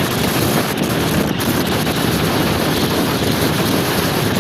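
Steady wind rushing over the microphone of a moving scooter, mixed with road noise.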